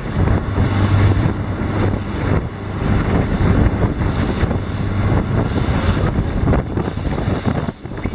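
Motorboat running at speed: a steady low engine hum under the rush of water past the hull and wind buffeting the microphone, with a brief dip in the wind noise near the end.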